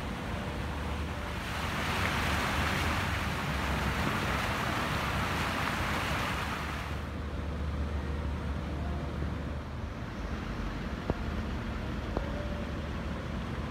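Fountain jets splashing into a stone basin: a steady rushing hiss that fades away about seven seconds in, as the fountain drops out of earshot. A low rumble runs underneath, and two short clicks come near the end.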